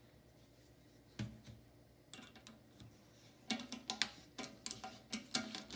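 Toilet seat hinge screws being unscrewed: a single click about a second in, then irregular clicking and tapping that grows denser from about halfway.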